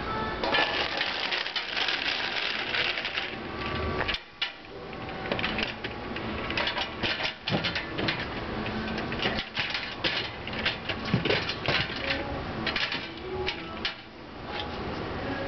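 Folding metal wagon's frame clattering and knocking as it is lifted into a car's rear cargo area and set down, a run of irregular sharp rattles and clanks.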